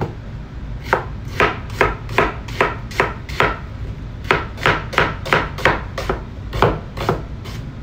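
Chef's knife slicing red onions on a wooden cutting board: a steady run of sharp knocks, about three a second, as the blade cuts through the onion and hits the board, with a short pause near the middle.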